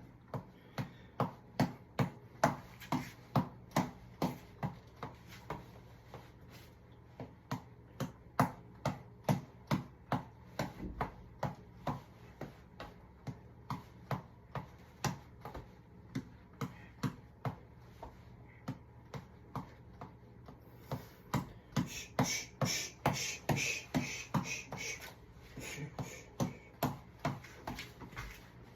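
A boxing reflex ball (tap ball) on a headband being punched over and over, each hit a short sharp slap at about two a second. The hits speed up and get louder about 22 seconds in.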